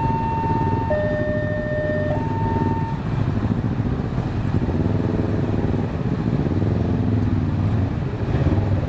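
Many motorcycles and a truck driving over the level crossing, engines running and revving. Over it, a two-tone hi-lo electronic warning tone alternates about once a second and stops about three seconds in.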